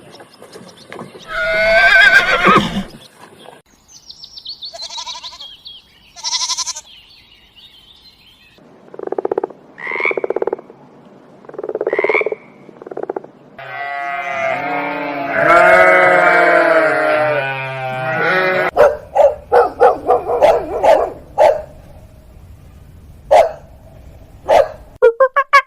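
A string of different animal calls, one after another: a loud call, some high thin calls, four short calls in a row, then one long call lasting several seconds, followed by rapid repeated pulsed calls near the end.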